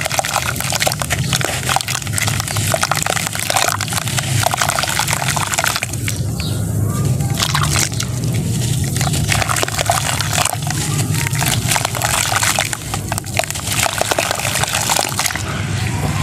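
Hands crumbling dry red sand-cement blocks into a bucket of muddy water and sloshing it, a dense crackly crunching mixed with wet splashing and squelching. The crackle thins out briefly twice about halfway through.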